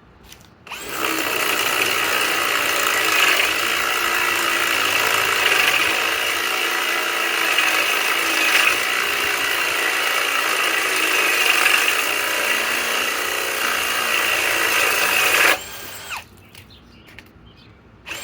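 Ryobi 750 inch-pound cordless hammer drill on speed 2, driving a 2-inch bit under steady load. It starts about a second in, runs evenly for about fourteen seconds, and stops abruptly once the bit has gone all the way through.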